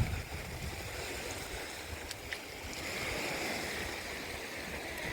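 Sea surf washing on a beach, with wind rumbling on the microphone.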